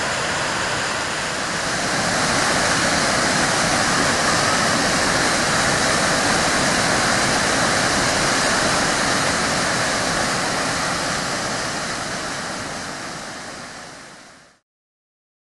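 Waterfall rushing steadily as a wide cascade pours over rock ledges into a pool. The rush grows a little louder about two seconds in and fades away near the end.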